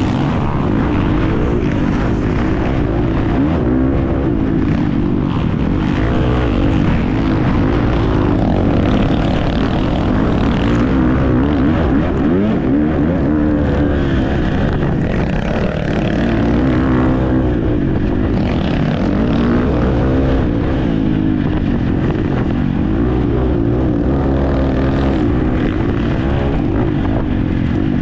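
Single-cylinder four-stroke engine of a Husqvarna FC350 motocross bike racing, its pitch climbing and dropping again and again with throttle and gear changes.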